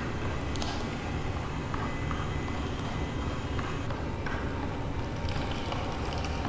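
Hurom slow-press juicer's motor running with a steady low hum.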